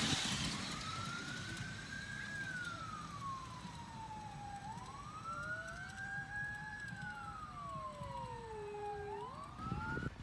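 Distant emergency-vehicle siren wailing, its pitch slowly rising and falling over several seconds, with a second, lower wailing tone joining about five seconds in.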